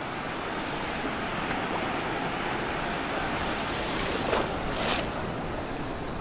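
Sea surf washing steadily on the shore, with wind, swelling briefly twice near the end.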